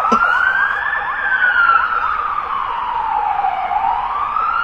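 Wailing siren, its pitch rising slowly, falling over two or three seconds, then rising again near the end, marking the arrival of police officers.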